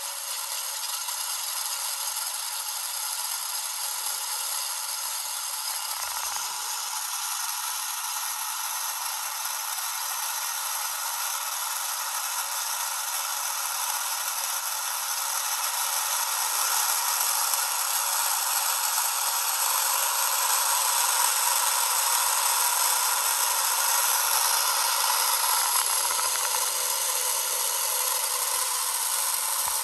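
Simulated twin Rolls-Royce Merlin engine sound of a de Havilland Mosquito running, played through the small speaker of a scale model's sound module. It is a steady, tinny buzz with no low end, and it grows somewhat louder about halfway through.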